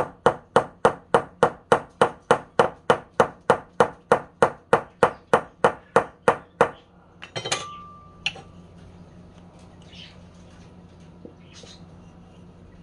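Rapid, even hammer taps, about four a second, that stop about seven seconds in. They are followed by a brief clatter with a short ringing tone and a single knock a moment later.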